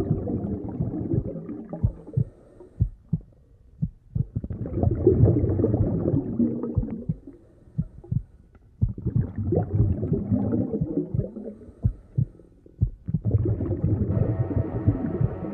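Muffled underwater rumble that swells and fades about every four seconds, with low thumps in the quieter gaps. A steady hum with several held tones comes in near the end.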